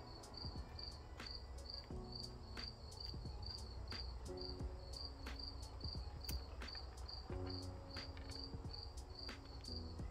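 A cricket chirping steadily, about two to three chirps a second, with a few faint clicks.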